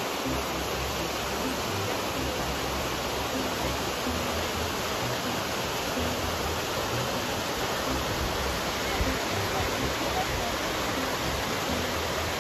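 Waterfall on a mountain stream, with the water falling over rock in a steady, even rush.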